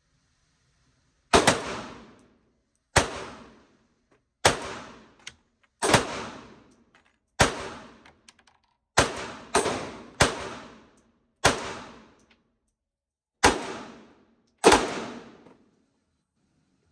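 Ruger LCP MAX .380 ACP pocket pistol fired eleven times, about one shot every second and a half, with three quicker shots in a row about two-thirds of the way through. Each shot rings on briefly in the indoor range.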